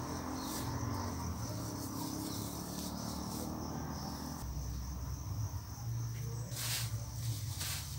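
Steady trilling of insects in the background, with rustling from plastic grafting tape being wrapped around a cleft graft on a seedling. Two sharp clicks come near the end.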